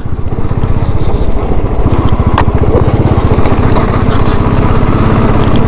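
Royal Enfield Classic motorcycle's single-cylinder engine running as the bike is ridden, a steady, rapid beat of firing pulses.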